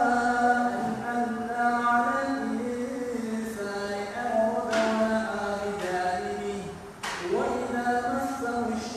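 A man's voice reciting the Quran in a slow, melodic chant, holding long drawn-out notes and pausing briefly for breath about five and seven seconds in.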